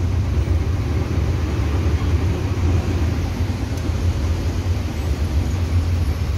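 City bus's engine running with a steady low rumble, heard from inside the bus.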